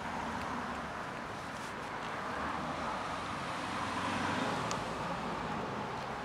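Steady hum of road traffic, with a few faint crunches of cats chewing dry kibble.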